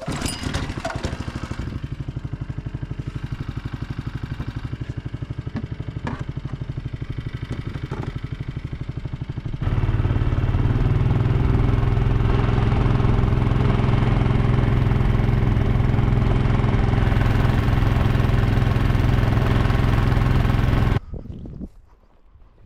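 Small outboard motor on a canoe running steadily, louder from about ten seconds in, then cutting off near the end.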